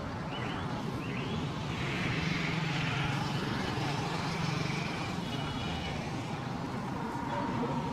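Street traffic noise: a steady hum of passing road vehicles.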